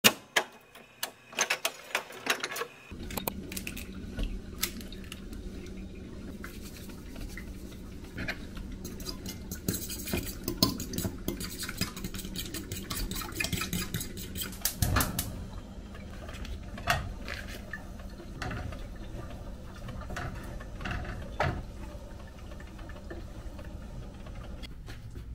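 Fork clinking and scraping against a ceramic bowl as eggs are beaten, in quick irregular strokes. There are a few scattered clicks at first, then a steady low hum starts a few seconds in.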